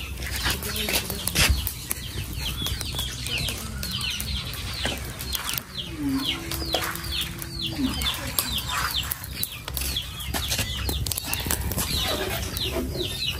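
Chickens, with chicks peeping: many short falling chirps repeat over and over. Scattered knocks are heard, and a low held note lasting about a second and a half comes a little past the middle.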